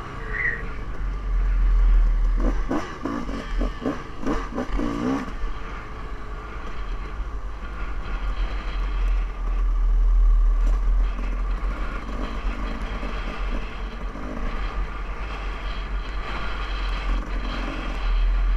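Off-road dirt bike engine running under throttle while riding, with heavy wind rumble on the helmet-mounted microphone. A run of rattling knocks comes from about two and a half to five seconds in.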